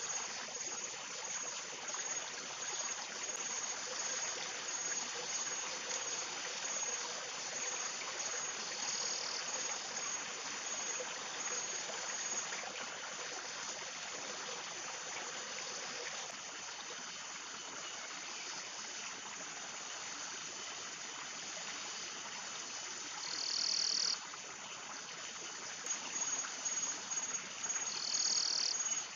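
Forest ambience: a steady rush of running water under a high, evenly pulsing insect trill, with a few short higher calls about nine seconds in and near the end.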